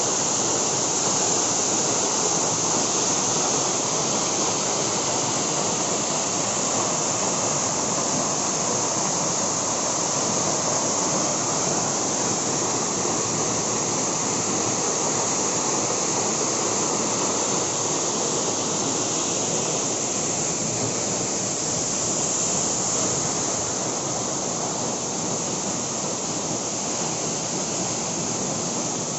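Waterfall: a loud, steady rush of falling water that stays even throughout.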